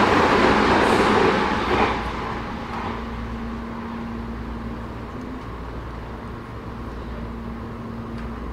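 Tobu 10030-series electric train heard from inside the car: loud rolling and running noise that drops away sharply about two seconds in, leaving a quieter low hum with a thin steady whine.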